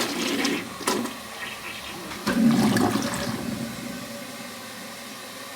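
Toilet full flush: a rush of water into the bowl and down the drain, loudest about two to three seconds in, then easing to a steady hiss. This is the flush after the rim holes were cleared of hard-water scale with muriatic acid to cure a slow, weak flush.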